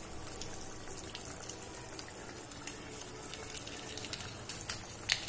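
Tomato-masala curry gravy simmering and bubbling in a kadai, a steady hiss with occasional small pops and clicks, the sharpest just before the end.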